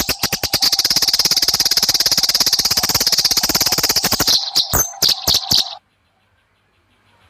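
Eurasian tree sparrows' fighting calls: a loud, fast, unbroken chatter of sharp chirps that breaks into a few separate chirps and stops about six seconds in.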